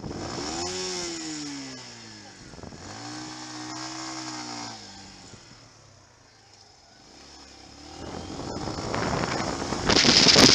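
Motorcycle engine heard from the bike itself: the revs fall away as it slows, then rise briefly and drop again. Wind noise on the microphone builds up and becomes loud near the end.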